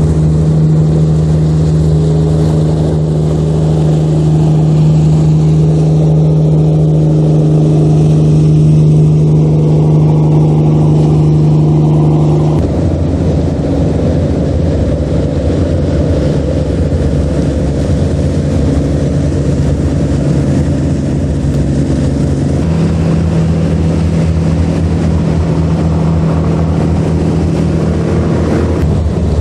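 Engines of small nori-farming fishing boats running at speed as they pass, a steady engine note over the rush of water. The note changes abruptly twice, a little under halfway through and again about three quarters of the way through.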